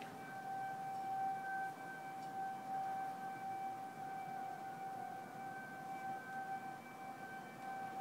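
Outdoor tornado warning siren sounding one steady, unwavering tone during a scheduled siren test.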